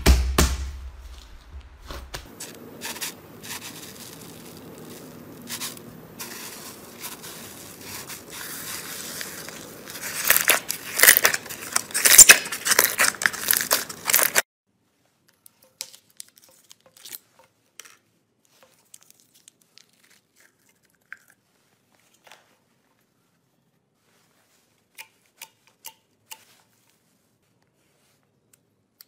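Hands pressing and squishing slime, a soft crackling and squelching that grows into loud, dense crackling about ten seconds in and cuts off abruptly some four seconds later. Then near silence, with a few faint pops and clicks as clear slime is squeezed.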